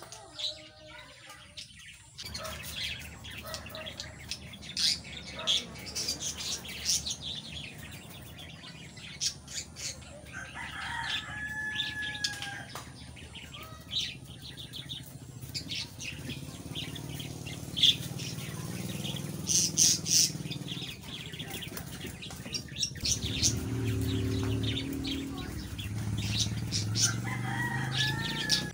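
Birds chirping with many short calls, with a longer pitched call about ten seconds in and another near the end. A low droning hum rises in the second half.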